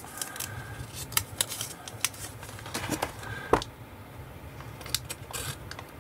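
Paper decal sheets and a clear cellophane bag being handled on a tabletop: scattered small clicks, rustles and taps, with one louder knock about three and a half seconds in.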